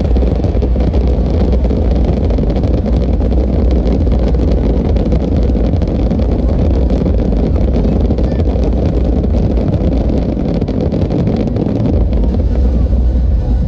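Fireworks going off in a rapid barrage: a continuous low rumble of bursts with many small crackles running through it.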